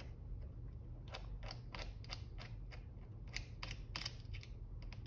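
About a dozen faint, irregularly spaced small clicks and taps of metal cable lugs and wires being handled on battery cell terminals.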